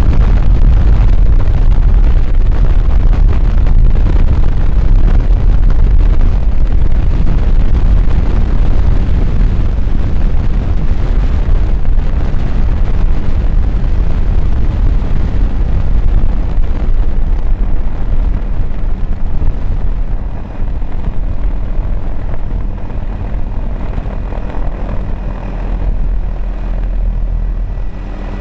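Loud wind rush and rotor noise of a doors-off helicopter in flight, heard from inside the open cabin. It eases about two-thirds of the way through as the helicopter slows on its approach to land, leaving a faint steady whine near the end.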